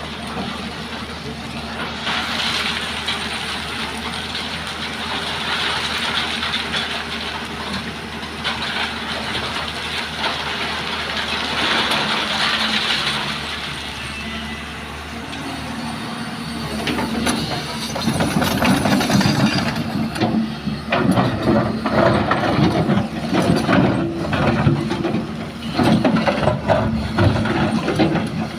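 Hyundai excavator's diesel engine running steadily under load, with a hiss over the first half. About two-thirds of the way in, loud irregular clattering and knocking sets in and goes on to the end.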